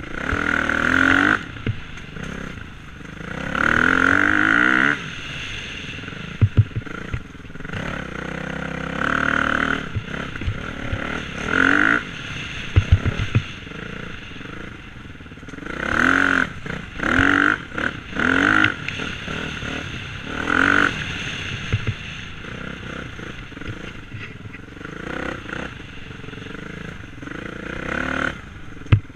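Dirt bike engine revving in repeated bursts as the throttle is opened and closed, its pitch rising with each burst and dropping back between them. A few sharp knocks come through, in a cluster a little over 6 seconds in and again around 13 seconds in.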